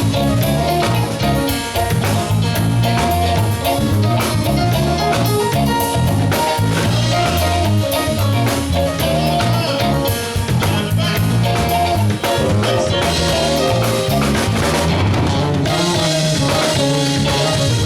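Live soul band playing an instrumental groove through the PA: a drum kit keeping a steady beat over a pulsing bass line, with a melodic lead line on top.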